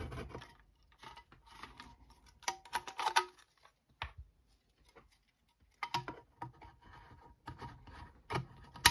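Empty tin can being worked with hand tools, first a can opener and then a screwdriver poked into its punched air holes to widen them. The metal gives scattered clicks and scrapes in short clusters, some with a brief metallic ring.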